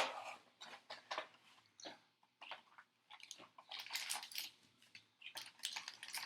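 Trading card packs being handled and torn open, their wrappers crinkling and crackling in irregular bursts with short pauses.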